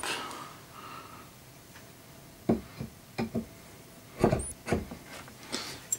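A handful of short knocks and clicks as statue pieces are handled and a section is fitted onto the top of a column, starting about halfway in.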